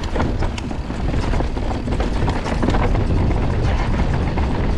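Mountain bike riding fast over a rocky dirt trail: a steady heavy rumble of tyres and wind buffeting the handlebar-mounted camera's microphone, with many sharp clicks and rattles from stones and the bike.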